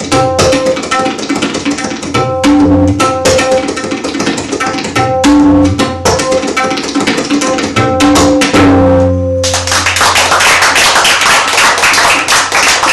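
Tabla played solo: sharp, ringing strokes on the treble drum (dayan) at a steady pitch, mixed with deep resonant bass strokes on the bayan. The playing ends on a sustained bass stroke about nine seconds in, and audience applause follows.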